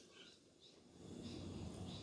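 Budgies chirping faintly, a few soft short chirps; the first second is almost silent.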